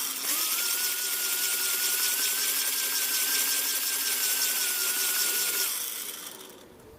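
Electric forge blower motor spinning up, running steadily with a whine over rushing air for about five and a half seconds, then winding down: air being blown into the coal fire to reheat the hook.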